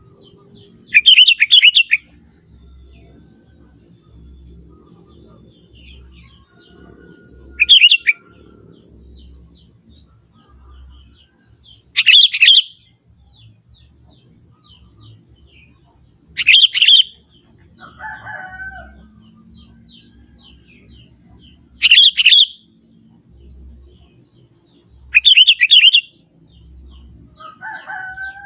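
Sooty-headed bulbul (kutilang) singing: six short loud song phrases of about a second each, repeated every four to five seconds, with two fainter, lower calls in between.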